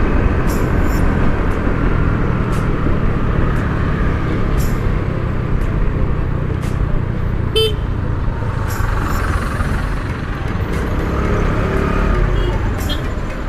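Steady traffic and riding noise heard from a moving two-wheeler, a dense low rush throughout, with a short vehicle horn toot about seven and a half seconds in.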